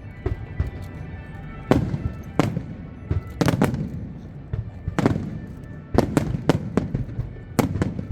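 Aerial fireworks bursting, a string of sharp bangs with echoing tails in quick, irregular succession, several close together about three and a half seconds in.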